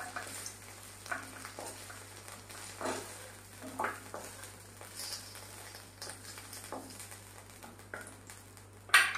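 Fried okra in a little oil in an iron kadai, faintly sizzling, with a few short scrapes and knocks of a wooden spatula against the pan as the pieces are scooped out; a louder knock near the end.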